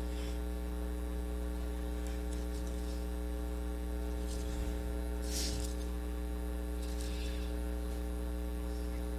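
Steady electrical mains hum with a stack of overtones, carried through the sound or recording system. A faint brief rustle comes about five seconds in.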